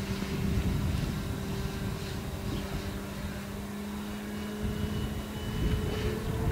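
Motor of a radio-controlled Tiger Moth scale model biplane flying overhead: a steady buzzing drone that shifts in pitch about two thirds through. Its note does not sound like a full-size aircraft.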